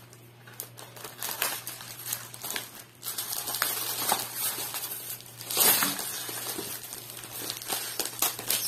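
Thin plastic packaging bags crinkling and rustling as they are handled and pulled open, in irregular bursts, loudest about halfway through.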